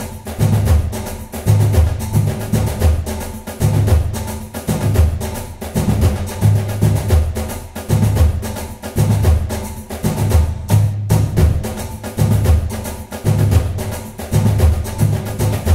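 Background music with a steady beat: percussion strikes over a bass line that repeats about once a second.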